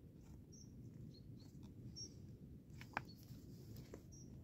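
Primer bulb of a Yamabiko-made chainsaw being pressed to prime the carburettor before starting: faint short squeaks and soft ticks, with one sharper click about three seconds in.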